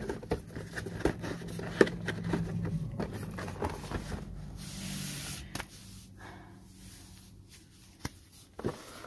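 Handling of a clear plastic mini-helmet display case and its cardboard box: a run of plastic clicks, taps and scraping, a short rustle about halfway through, and a few light knocks near the end as the case is set down. A low hum sits under the first half.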